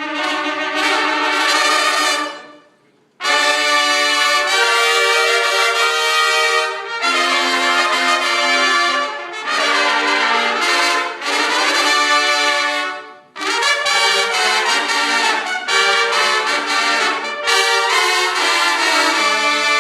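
Marching band brass section playing loud, full held chords in phrases. It breaks off briefly about three seconds in and again near thirteen seconds.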